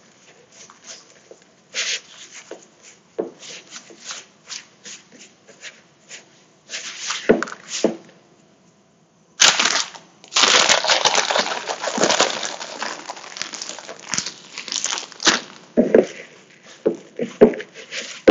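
Hands rubbing crumble mixture in a mixing bowl, soft scattered rustles and clicks. About nine and a half seconds in, a plastic bag crinkles loudly for several seconds as more oats are tipped in, and the hand-mixing goes on near the end.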